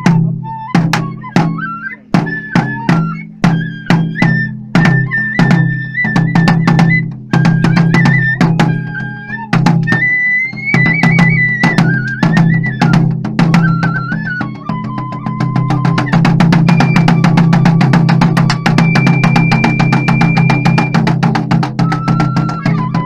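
Live kagura festival music: a barrel-bodied Japanese taiko drum struck in a quick, driving rhythm under a high flute melody. After about fifteen seconds the drumming turns into a fast continuous roll while the flute holds long notes.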